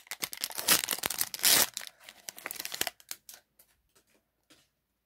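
Foil trading-card pack wrapper being torn open and crinkled by hand: a dense crackling for about three seconds, then a few light crinkles that fade out.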